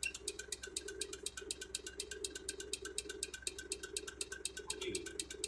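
Faint, rapid, even ticking at about seven ticks a second over a low steady hum.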